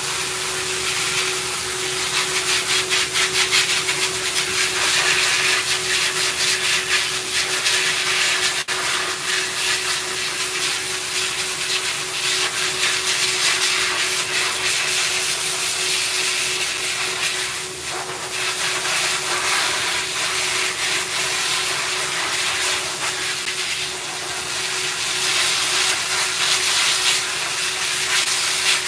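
Pet grooming dryer (high-velocity blower) running steadily, air rushing out of its hose over a dog's coat, with a constant motor whine underneath.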